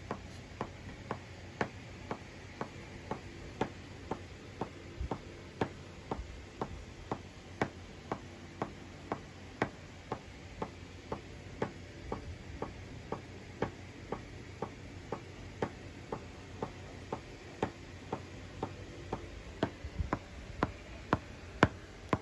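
Steady ticking, about two ticks a second with a louder one every fourth, over faint hiss. This is the 'tick, tick, tick' that the uploader takes for a clipping noise while recording in GarageBand. It keeps time with the project's 120 bpm, 4/4 tempo, as GarageBand's metronome click does.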